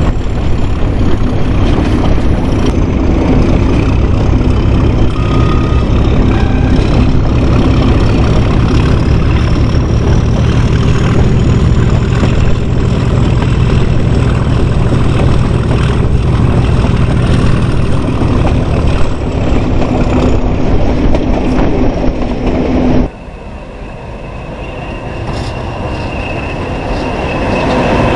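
Diesel locomotive engine working under power, heard close up: a loud, heavy, steady rumble with a faint high whine that rises and then falls. About 23 seconds in it cuts off abruptly to a much quieter steady hum with a high-pitched tone.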